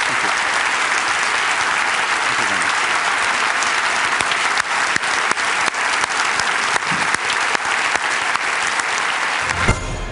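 Large audience applauding steadily. Near the end the clapping cuts off abruptly and a short musical sting begins.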